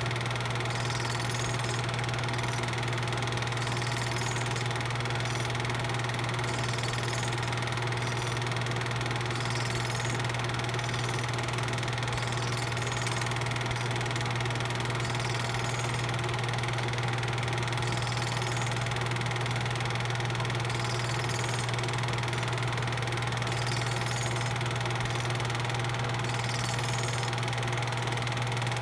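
A steady low machine hum, like a motor running, that stays level and unchanging throughout.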